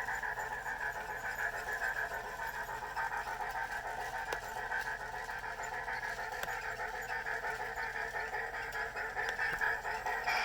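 Sound decoder in a Bachmann Plus 4-8-4 Niagara model locomotive playing steam exhaust chuffs in a quick, steady rhythm through its small speaker.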